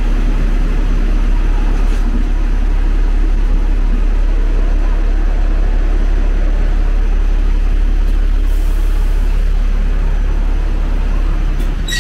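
Steady low rumble of street traffic at a tram stop, with a short high squeal right at the end.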